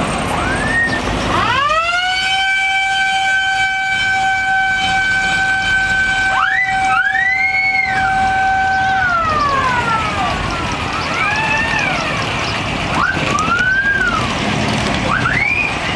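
A siren winds up about a second and a half in, holds one steady pitch for about seven seconds, then winds down, while short rising-and-falling whistle-like chirps go off again and again around it.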